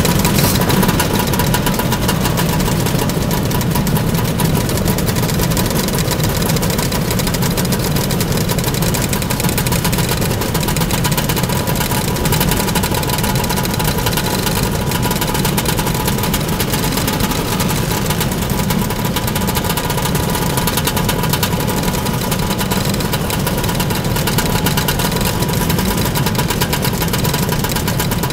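A crowd of motor scooters idling and running together in a steady mass of engine noise.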